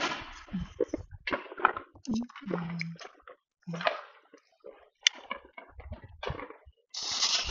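Consumer fireworks set off on the ground: a bang with a hissing tail at the start, then scattered short pops, and near the end a steady loud hiss as a freshly lit ground firework begins to spray.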